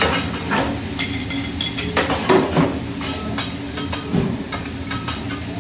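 Metal spatulas clinking and knocking against a hibachi flat-top griddle, over a steady sizzle of food cooking.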